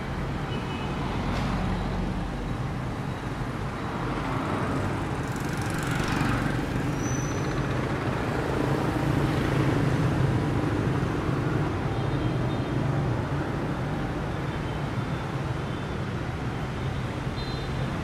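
City street traffic: a steady hum of motorbikes and cars passing, with a nearer vehicle getting louder around the middle.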